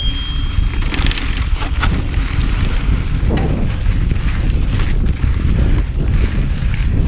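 Wind buffeting the microphone as a mountain bike rolls along a dry dirt singletrack, a steady low rumble with scattered clicks and knocks from the bike over bumps. A brief high steady squeal sounds in the first second.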